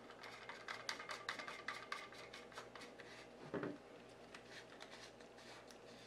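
Quick irregular clicks and small rattles of a Shimano ForceMaster Limited 3000 electric reel being fitted and locked into a squid rod's reel seat, with one duller knock about three and a half seconds in, then a few faint clicks.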